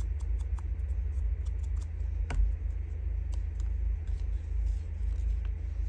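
Ink blending tool dabbed and rubbed along the edges of paper strips: a scatter of small light clicks and taps, with one louder knock a little over two seconds in, over a steady low hum.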